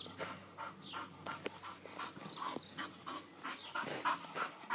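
English bull terrier panting rapidly and heavily, about three to four short breaths a second, with a few light clicks.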